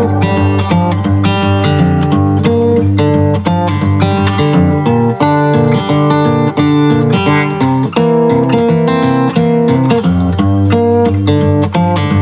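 Background music: guitar-led instrumental with steady strummed and plucked notes.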